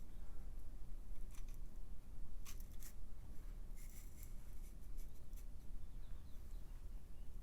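Short scratching strokes against the metal pipe as it is marked or worked by hand for the notch: a few quick strokes about a second in, a pair near two and a half seconds, and more near four seconds, over a low steady hum.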